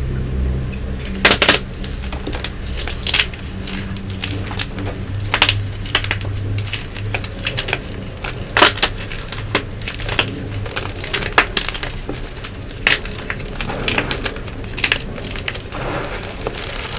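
Blocks of Nexo gym chalk being crushed and crumbled by hand: a continuous dry crunching, broken by loud sharp snaps at irregular moments as pieces break.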